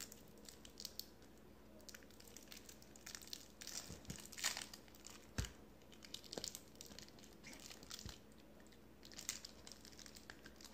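Faint rustling and crinkling with scattered small clicks, and one sharper knock about five and a half seconds in.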